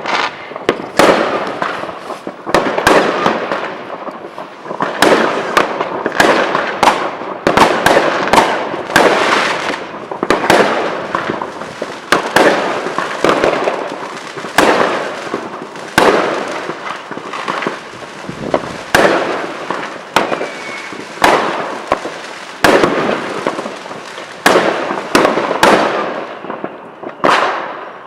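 Consumer fireworks and firecrackers going off in quick succession: sharp bangs and pops, often several a second, each with a crackling, echoing tail. A faint rising whistle of a launching rocket is heard about twenty seconds in.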